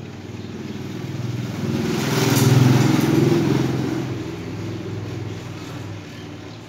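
A motor vehicle's engine passing by, swelling to its loudest about two and a half seconds in and then fading away.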